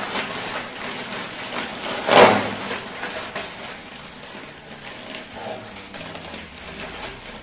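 Plastic Kurkure snack packets crinkling and crackling as two are torn open by hand, loudest about two seconds in.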